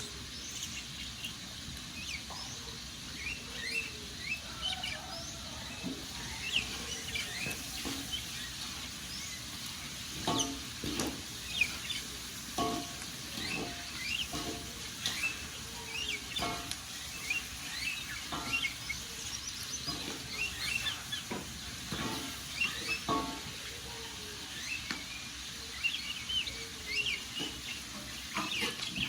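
Wood fire crackling and popping, with sharp pops bunched around the middle. Many small birds chirp and twitter throughout.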